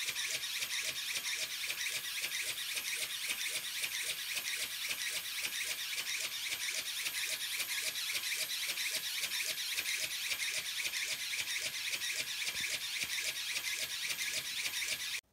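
Ornithopter's tiny 7x16 mm brushed motor and 1:140 micro gear train driving the transverse flapping mechanism and film-covered wings on a hand-held bench test. It makes a steady high-pitched whine with a regular pulse about four to five times a second, and cuts off suddenly near the end.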